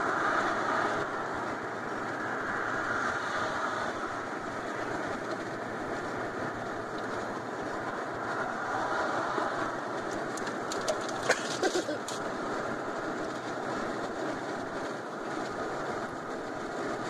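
Steady road and engine noise inside a moving car's cabin, with a few short clicks about eleven seconds in.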